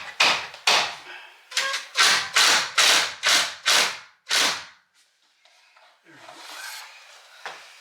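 A hand tool worked in quick, short strokes on the door lite's fastening: a run of about a dozen sharp scraping or ratcheting strokes, two to three a second, that stops about halfway through.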